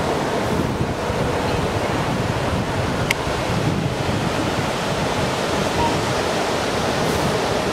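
Ocean surf washing steadily, with wind buffeting the microphone. A brief click sounds about three seconds in.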